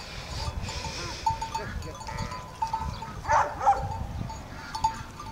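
Sheep bells clinking irregularly as a flock of sheep and lambs moves and grazes, with a sheep bleating a couple of times a little past the middle.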